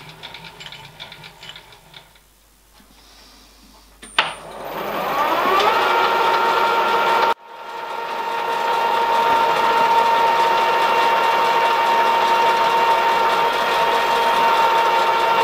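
Milling machine spindle starting with a click and a rising whine about four seconds in, then running with a steady high whine while a drill bit cuts into the brass big-end bearing block. The sound breaks off sharply near the middle and builds back up to the same steady whine.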